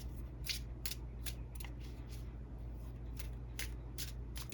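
Tarot cards being handled on the reading table: a string of short, crisp card clicks and slides, irregular, a few a second, over a low steady hum.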